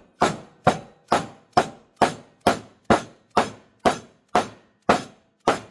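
Hammer blows knocking at a wheel bearing to drive it out of a motorcycle's rear sprocket carrier (cush drive hub): about a dozen evenly spaced strikes, roughly two a second, each with a short metallic ring. The bearing is not shifting under the blows.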